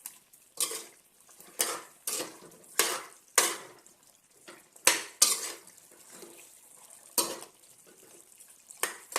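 Metal spoon scraping and clattering against a cooking pot as its contents are stirred, in strokes about every half second, with a short lull near the end.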